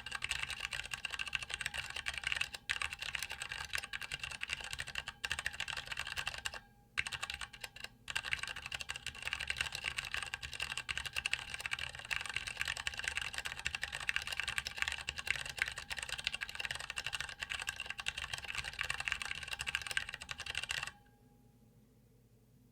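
Fast typing on a MiniVan 40% mechanical keyboard with Cherry MX Tactile Grey switches, PBT keycaps and an aluminum case: a dense, continuous stream of key clicks with a few brief pauses, stopping about 21 seconds in.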